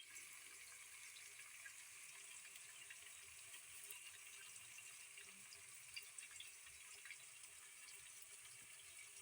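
Near silence: a faint steady hiss with a few small scattered ticks in it.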